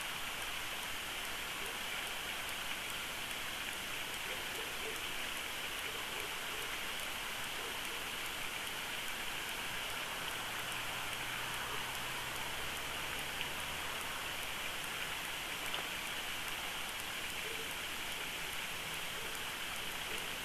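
Steady, even outdoor hiss with no distinct events, and a faint low drone that comes in about halfway through.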